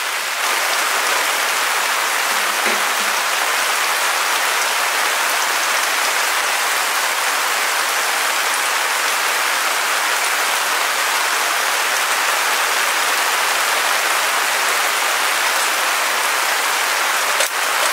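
Steady rain falling on the tarp flysheet overhead and the wet grass around it.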